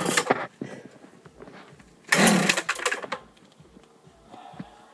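Two pulls on the recoil starter of a Makita petrol cut-off saw, about two seconds apart. Each gives a short, loud rasp as the engine turns over, and the engine does not catch.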